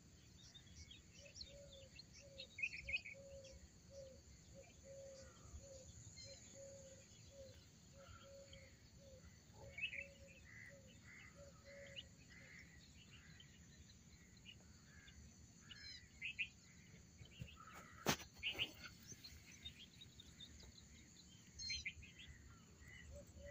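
Faint rural ambience: birds chirping on and off, a low note repeated about twice a second that stops about halfway and returns near the end, and a steady faint high insect drone. A single sharp click about eighteen seconds in.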